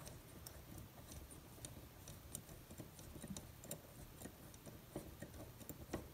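Faint, irregular light clicks of an Allen key turning the small set screw that fastens a Moen single-handle kitchen faucet's handle.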